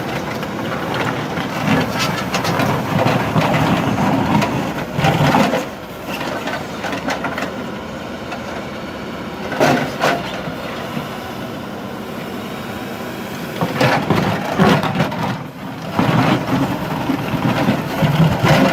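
Backhoe loader's diesel engine running, with several louder surges and clattering knocks over a steady drone.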